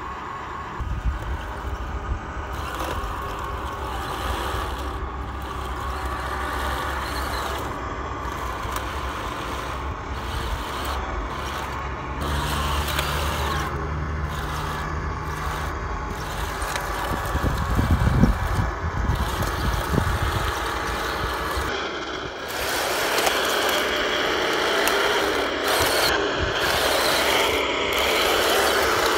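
1/16-scale RC Panzer IV tank driving over rough, rocky ground: its small gearbox motors whir and its tracks clatter and grind over stones. The sound grows louder about three quarters of the way through.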